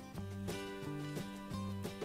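Background music, its notes changing about every half second.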